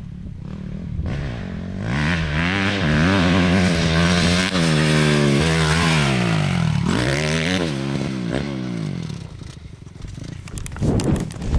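Dirt bike engine revving hard as it comes near, its pitch rising and falling with the throttle through the ride and a jump, louder from about two seconds in and fading toward the end. A short scraping clatter follows near the end.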